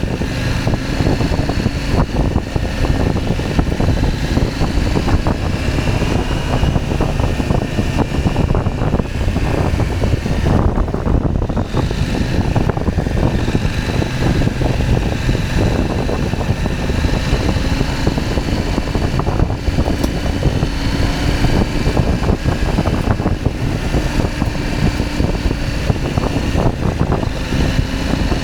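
KTM 790 Adventure's parallel-twin engine running under way, its pitch gently rising and falling with the throttle, over a steady low rush of wind.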